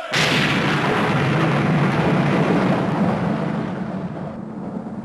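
A thunder-like rumbling sound effect that starts abruptly and slowly dies away over several seconds, its high hiss fading first.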